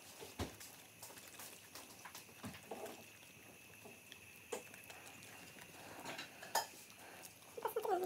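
West Highland white terrier chewing a strawberry from a hand: scattered short wet smacks and clicks of its mouth on the fruit.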